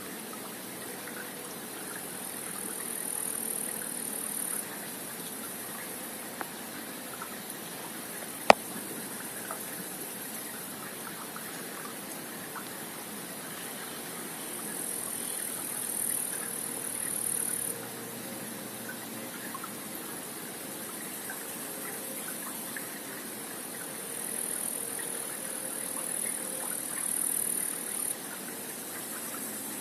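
Creek water running steadily below a pond dam. A high hiss swells and stops three times, and there is one sharp click about eight seconds in.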